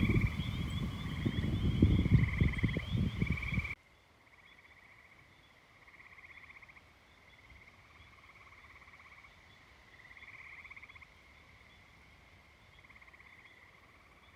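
Wind buffeting the microphone with a gusty low rumble for the first few seconds, cut off abruptly. Throughout, frogs give short pulsed trills every second or two, faint once the wind stops.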